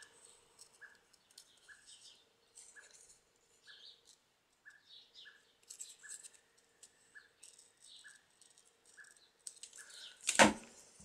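Scissors snipping paper in short, quiet cuts, about one or two a second, as a small paper cutout is trimmed. A louder knock about ten seconds in as the scissors are set down on the table.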